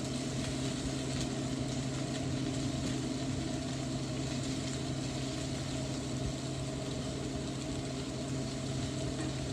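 Chopped onions sizzling steadily in oil in a frying pan, over a steady low hum.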